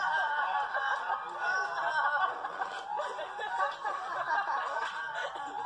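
Several overlapping cartoon voices laughing and snickering, thin and tinny as if played from a speaker and picked up again by a microphone.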